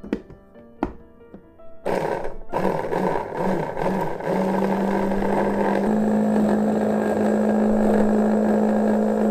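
Two light knocks, then about two seconds in an electric mini food chopper starts. Its motor runs in a few short pulses, then steadily with a low hum that steps slightly up in pitch, as the blades chop cilantro, garlic and chili into a wet paste.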